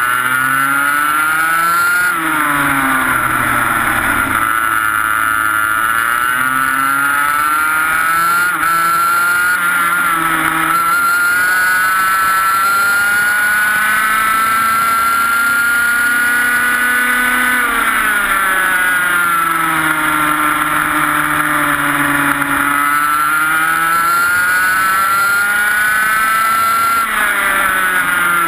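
Onboard sound of a TaG racing kart's 125cc two-stroke engine at racing revs. Its pitch climbs and falls several times, with one long climb through the middle, a drop about two-thirds of the way through, then another climb near the end: accelerating down the straights and lifting for the corners.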